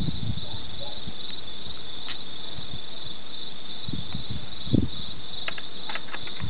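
Steady hiss of heavy thunderstorm rain, with a few short low thumps about four to five seconds in.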